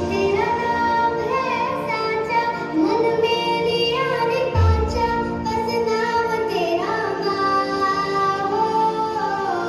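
A song: a singing voice carrying a melody over steady instrumental backing, with a short low bass hit about halfway through.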